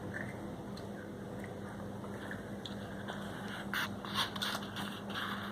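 Faint eating sounds: a few soft clicks and scrapes about four seconds in, over a steady low hum.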